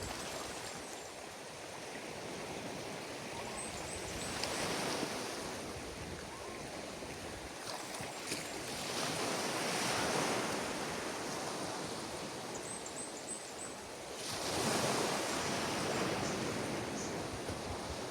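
Ocean surf washing onto a beach: a steady hiss of water that swells three times, about every five seconds, as waves break.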